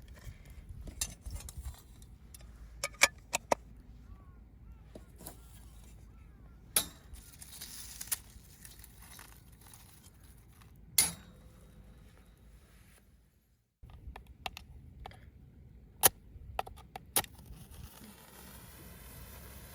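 Small hard objects being handled and set down: scattered sharp clicks, clacks and clinks, with a brief cut to silence a little past the middle.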